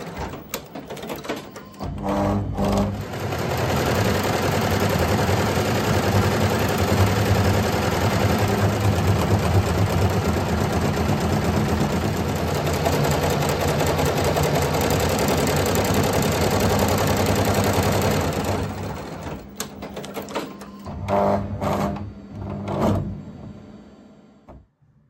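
Multi-needle embroidery machine stitching at speed, a fast, steady mechanical clatter of needle strokes. It stops about three-quarters of the way through, starts again for a few short bursts, then fades out near the end.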